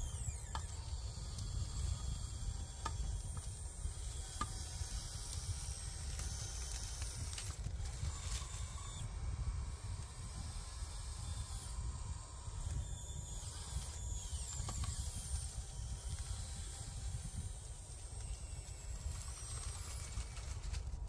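Small electric motors of a radio-controlled excavator whining as it works, the high whine rising and falling in pitch again and again, over a steady low rumble.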